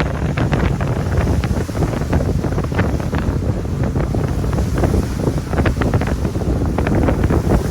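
Wind buffeting the microphone with water splashing and slapping against the hull of a moving pontoon boat.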